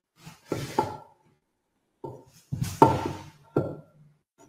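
Hand tools handled and set down on a wooden workbench: several separate knocks and clatters, the loudest about three seconds in.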